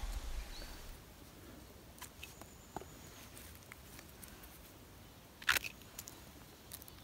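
Hands cutting chanterelle mushrooms with a small knife among moss and forest litter: soft rustling and a few small clicks, with one sharp crackle about five and a half seconds in.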